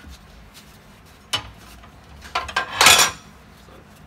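Tire iron clanking and scraping against a metal wheel rim while a large truck tire's bead is worked over it on a tire-changing machine. A single knock comes about a second in, then a quick cluster of clanks ending in a louder scrape near three seconds in.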